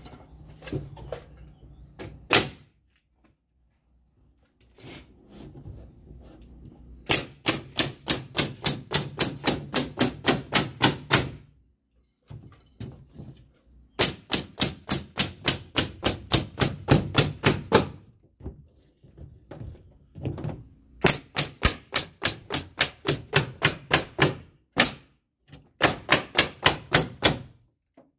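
Metabo HPT (Hitachi) NV90AGS pneumatic coil framing nailer driving nails into OSB sheathing in rapid strings of about four shots a second. There are four long runs and a couple of single shots, with pauses of a second or two between them.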